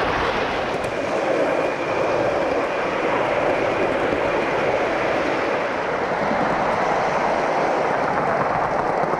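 Gauge 1 model train running on garden track: a steady rolling rush of wheels on the rails.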